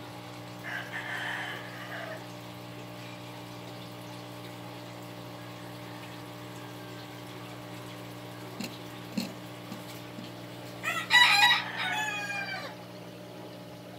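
A rooster crows once, a pitched call of about a second and a half, over a steady low background hum.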